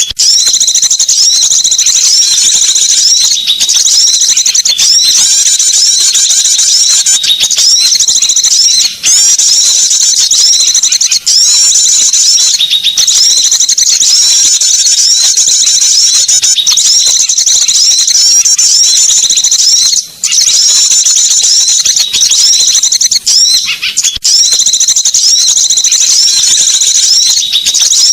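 Dense, loud chattering of small songbirds: rapid high-pitched chirps and trills repeating almost without pause, used as a lure call to draw small birds in.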